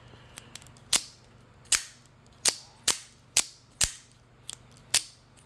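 AKC F-16 out-the-front automatic knife fired and retracted again and again: its spring mechanism snaps the blade out and back with sharp, loud clicks, about seven of them at uneven half-second to one-second spacing, with a few lighter clicks between.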